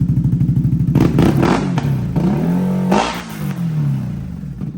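CFMOTO CForce 1000 ATV's V-twin engine, fitted with cat-delete headers, idling. It is blipped a few times about a second in, then revved up and back down in one longer sweep before settling back to a pulsing idle.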